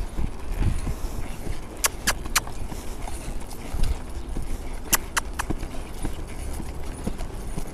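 A reining mare's hoofbeats, irregular low thuds, as she is worked through a maneuver. Two sets of three sharp clicks cut through, about two seconds and about five seconds in.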